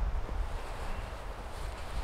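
Wind rumbling on the microphone, with faint rustling and light ticks of nylon webbing as a rucksack's hip belt is handled and fastened.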